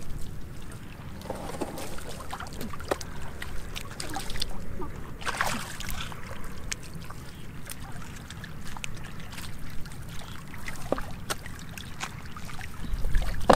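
Scattered splashes and sloshing in shallow muddy water as stranded catfish thrash and people wade barefoot, with a louder splash about five and a half seconds in.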